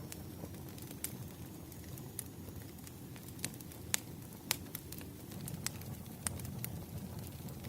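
Campfire crackling: a low, steady rush of burning with irregular sharp pops and snaps, the two loudest pops coming about half a second apart in the middle.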